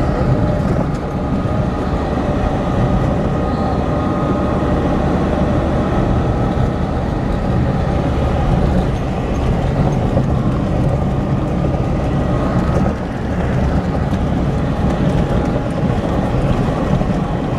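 Lada Niva 4x4 driving along a rough dirt track, heard from inside the cabin: a steady engine drone mixed with tyre and road rumble.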